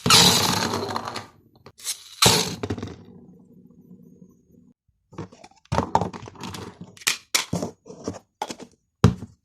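Cracking and crunching handling sounds. A loud crack at the start and another about two seconds in each trail off, then a quicker run of sharp clicks and cracks follows.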